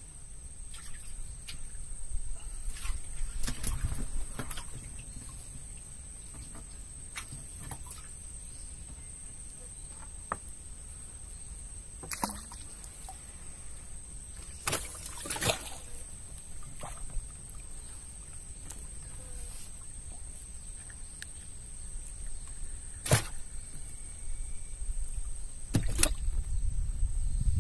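Small wooden fishing boat on calm water: a steady low rumble and a thin steady high tone, with a few sharp knocks and clicks from fishing gear being handled against the wooden planks.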